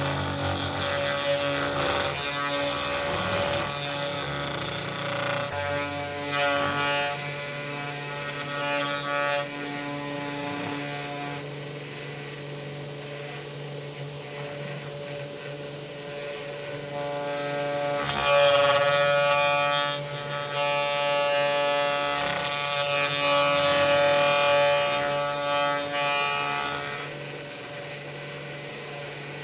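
CNC router spindle running with a small end mill cutting a round pocket into a wooden offcut: a steady machine whine with a louder, harsher cutting sound over it. The cutting sound swells while the bit is working the wood, loudest in the first third and again through much of the second half, and eases near the end.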